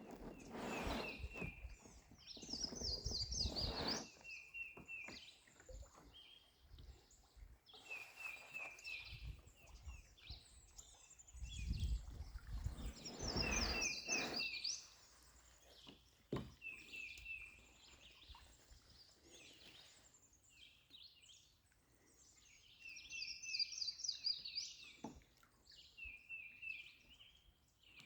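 A songbird repeating a short song every few seconds, each a quick run of clear notes with a higher, faster flourish. Low rumbles come and go twice, in the first few seconds and again near the middle.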